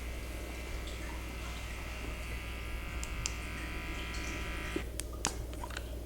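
Small electric motor running with a steady whine, cutting off suddenly about five seconds in, with a few light clicks around it.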